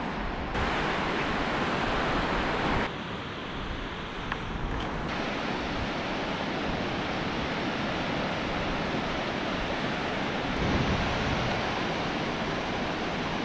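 Steady rush of beach surf mixed with wind buffeting the microphone, its level jumping abruptly a few times where shots are cut together.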